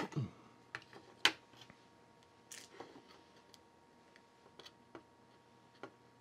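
Light clicks and taps of fingers handling a circuit board and the black metal heatsink bracket mounted on it, with one sharp click about a second in and a short scrape a little later.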